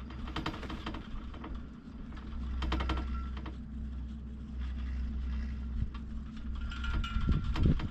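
Poma fixed-grip double chairlift running: bursts of rapid mechanical clicking and rattling over a steady low rumble. The clatter comes three times, near the start, about three seconds in, and loudest near the end with heavier thumps.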